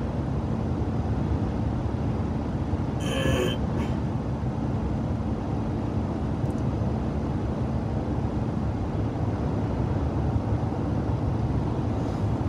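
Steady low rumble of engine and tyres inside a moving car's cabin, with a brief short sound about three seconds in.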